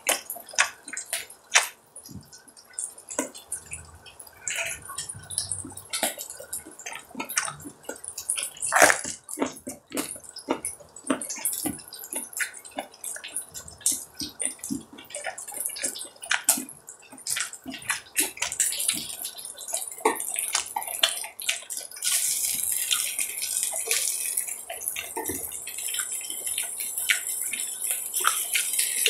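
Beef rib meat sizzling on a hot iron griddle: scattered sharp crackles and pops, turning into a steadier, denser sizzling hiss about three-quarters of the way through.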